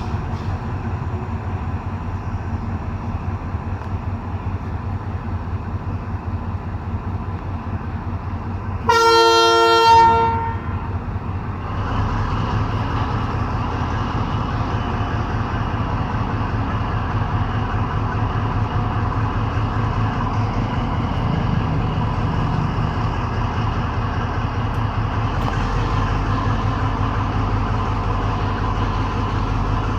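A train's diesel engine running steadily. About nine seconds in, its horn sounds once for about a second and a half, and from about twelve seconds the engine grows louder.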